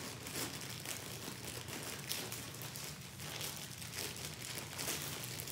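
DHL plastic courier mailer bag crinkling and crackling unevenly as it is pulled open by hand.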